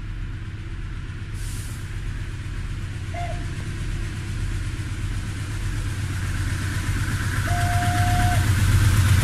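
Low, steady engine rumble that grows gradually louder, with a short single-pitch toot about three seconds in and a longer held toot near the end.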